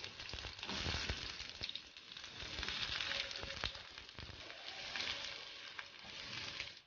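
Sliced onions sizzling and crackling in hot oil in a frying pan as they are stirred with a spatula.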